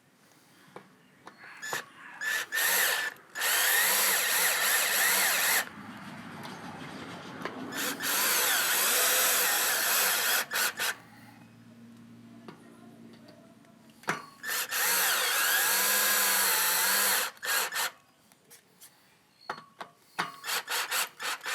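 Cordless drill driving screws in about four bursts of two to three seconds each. The motor's pitch wavers as the trigger and load change, with quieter handling noises between the bursts.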